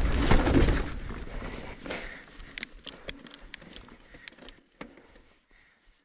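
Mountain bike ride noise, a rumble of tyres and wind on the helmet camera, dying away over the first second or two as the bike slows. It is followed by a few seconds of scattered sharp clicks that grow sparser and fainter until it is nearly silent.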